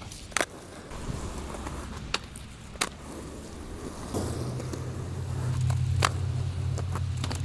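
Skateboard on wet pavement: a few sharp clacks of the board and wheels hitting the ground, with a low steady rumble coming in about four seconds in and growing louder.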